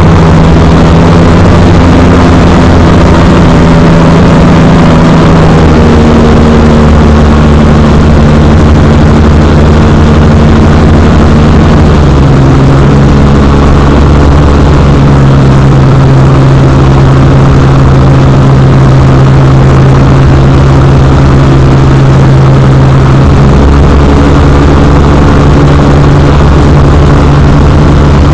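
X-Air microlight's engine and propeller droning steadily and very loud, its pitch stepping down slightly a couple of times as the power setting changes.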